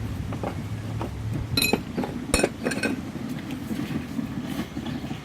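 Steel tools clinking as a ball joint press is worked with a breaker bar and socket: scattered light clicks and two sharp ringing metal clinks a little under a second apart, about two seconds in.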